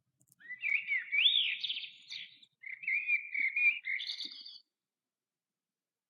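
A songbird singing two warbling phrases of quick, gliding whistled notes, each about two seconds long.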